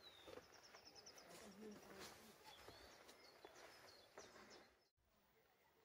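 Faint birdsong: a quick trill of high repeated notes near the start and scattered chirps, over quiet outdoor background. The sound drops out abruptly about five seconds in.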